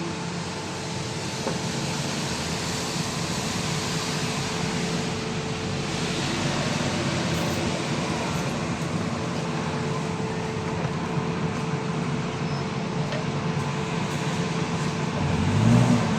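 Steady background noise: an even hiss and low rumble with a faint continuous hum, rising into a louder low sound near the end.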